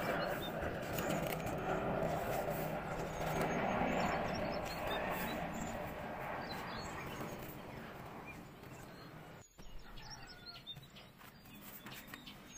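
Birds chirping over a steady background hiss. About nine and a half seconds in the hiss drops out suddenly, leaving quieter ambience with scattered chirps.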